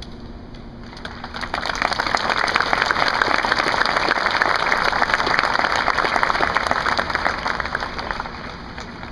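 Audience applauding: the clapping starts about a second in, swells, and dies away near the end.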